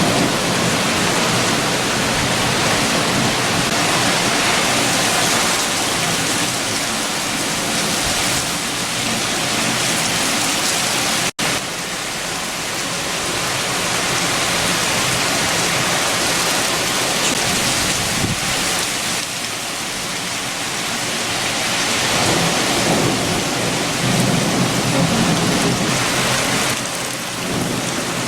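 Steady heavy rain with strong wind, and a low rumble that swells and fades several times. The sound drops out for a split second about eleven seconds in.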